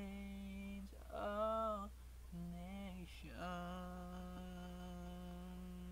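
A lone voice singing unaccompanied in long held notes: three short notes, the second the loudest, then one long note from about three and a half seconds in that is held to the end.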